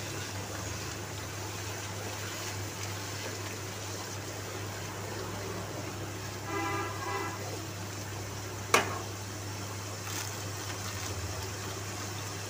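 Spice masala with yogurt frying in oil in a nonstick pan, a steady sizzle as it is stirred with a spatula. A brief high tone sounds about seven seconds in, and a single sharp knock comes near nine seconds.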